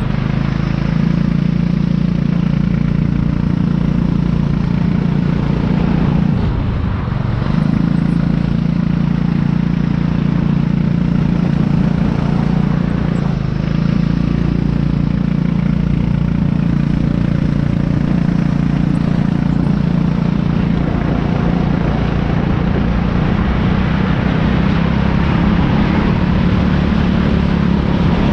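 Racing kart engine heard from the kart itself, running hard at high revs. The note drops briefly twice, about seven and thirteen seconds in, as the kart slows through corners, then climbs again as it picks up speed.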